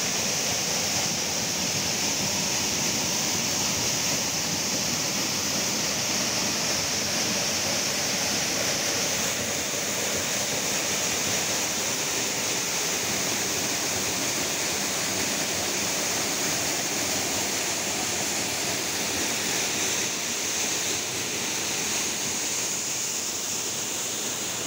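Waterfall running, a steady, unbroken rush of falling water with a bright hiss high in the sound.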